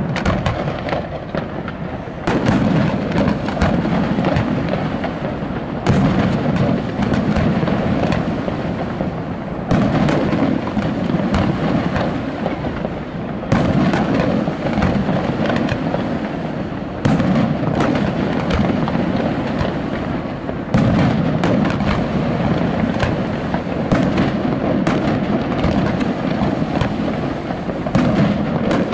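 Aerial firework shells bursting in a continuous display: a loud boom roughly every three to four seconds, with constant crackling reports and rumble in between.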